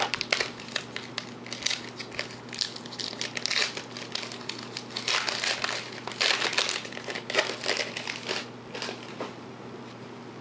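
Foil trading-card pack wrapper crinkling as it is opened and handled. The crackles come in a dense run and die away about nine seconds in.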